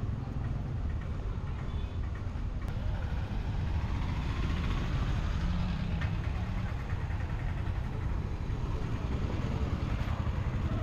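Street traffic with tuk-tuk, motorbike and car engines running and idling, over a steady low rumble.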